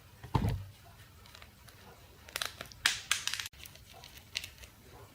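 Faint small clicks and scrapes of a tiny screwdriver working screws out of a phone's main board, with a soft knock about half a second in.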